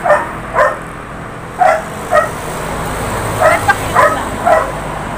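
A dog barking repeatedly, about nine short barks at uneven intervals, some in quick pairs.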